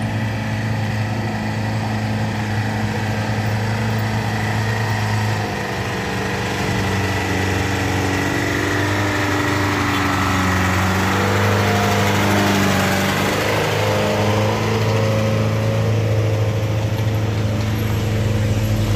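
Engines of vehicles climbing a steep grade close by: a steady low engine hum throughout, with the engine note shifting and rising as a Mitsubishi Colt Diesel HD dump truck drives past about halfway through, followed by a pickup carrying a load.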